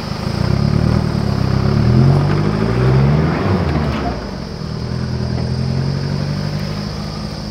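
Dual-cab 4x4 ute's engine revving under load as it climbs a rutted dirt track. The revs rise and fall twice in the first few seconds, then settle to a steadier, lower run.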